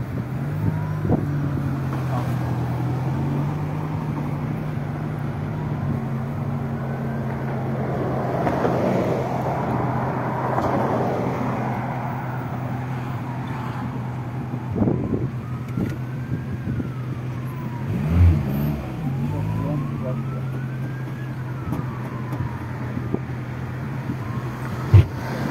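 Steady engine and road noise inside a moving car, with a wailing emergency-vehicle siren rising and falling slowly over it, near the start and again in the second half. Two brief thumps late on.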